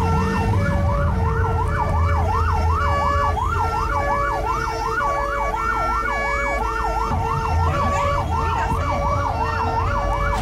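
Ambulance siren sounding on a fast wail that rises and falls rapidly and keeps going, heard from inside the cab over the vehicle's engine hum.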